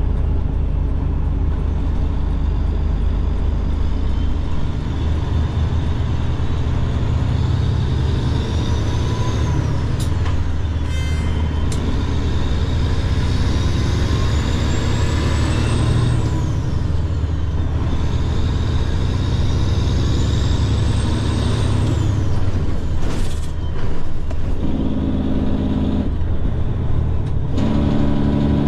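Semi truck's diesel engine heard from inside the cab while pulling away and gaining speed, with a high whine that climbs and drops away three times as it goes up through the gears.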